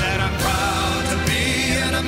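Music with a singing voice, its held notes wavering.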